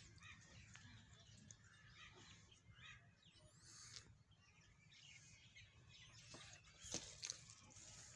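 Near silence: quiet outdoor ambience with faint bird chirps, and one short click about seven seconds in.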